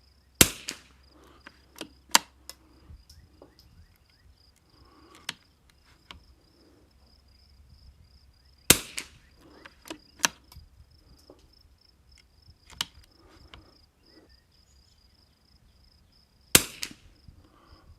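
Three .22 rimfire shots from a Remington 40XB target rifle firing Eley Tenex match ammunition, about eight seconds apart, each a sharp crack with a short ringing tail. Smaller sharp clicks come between the shots.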